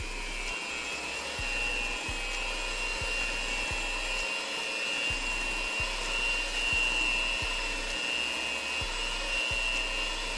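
Electric mixer running steadily with a high whine, beating yellow food colouring into red cake batter.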